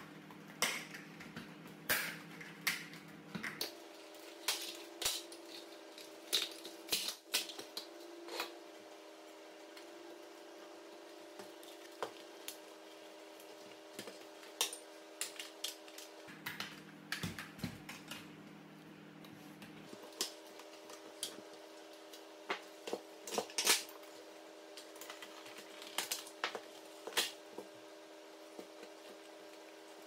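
Irregular clicks, snaps and knocks of the plastic housing of a Nespresso coffee machine being handled and pried apart, some with a metal tool. A faint steady hum runs underneath.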